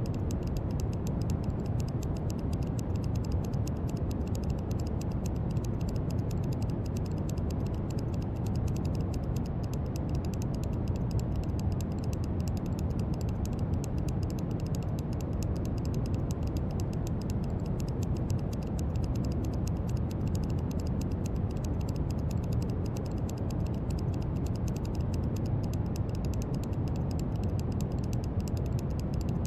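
Steady brown noise: an even, unbroken rumbling hiss, heaviest in the low end and thinning toward the top.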